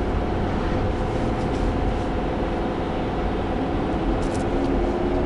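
Heavy-duty pickup's turbo-diesel engine pulling hard at wide-open throttle, a steady drone with road noise heard from inside the cab. The truck is under heavy load, towing 30,000 lb up a steep grade.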